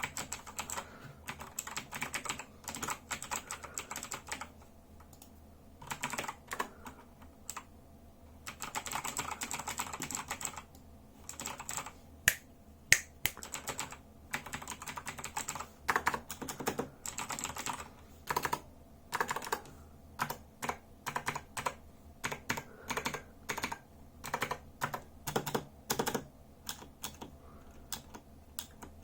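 Razer BlackWidow Chroma V2 mechanical keyboard with clicky Razer Green switches being typed on. Quick runs of keystrokes come in bursts with short pauses between them, and a few single harder key presses stand out near the middle.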